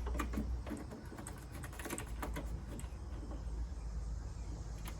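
Scattered light clicks and taps of small parts being handled, most of them in the first couple of seconds: a screw ring being fitted onto the reset button of a table saw's replacement switch. A faint steady low hum lies under it.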